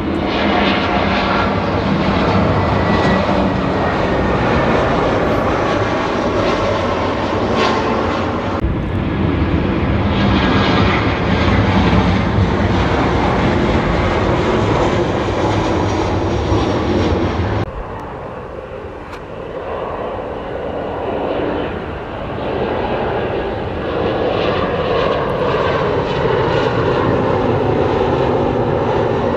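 Jet airliners on final approach passing over, their engines running in a steady, loud rush. The sound is cut between several aircraft, with abrupt changes about a third and two-thirds of the way through. The last part is quieter, with a whine that falls in pitch as the aircraft passes.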